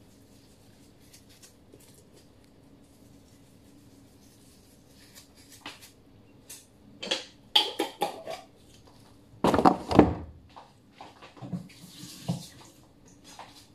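Kitchen items being handled on a counter: scattered knocks and clinks, the loudest clatter about ten seconds in, then a few lighter knocks and a rustle.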